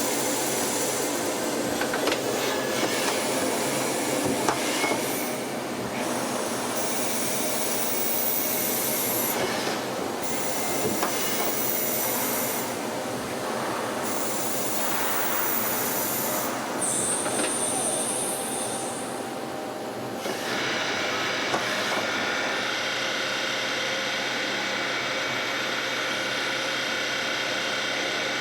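CNC turning centre running through a machining cycle: steady, hissing cutting and machine noise with brief high whines that rise and fall. About twenty seconds in it settles into a steadier hum.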